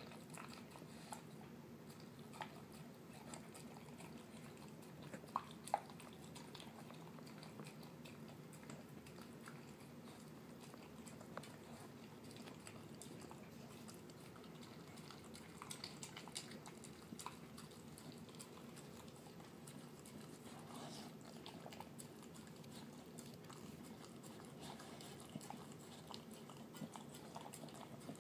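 A terrier mix eating canned dog food mixed with kibble from a glass dish, chewing and licking with faint wet, mushy sounds. Small clicks are scattered through it, with two sharper clicks about five seconds in.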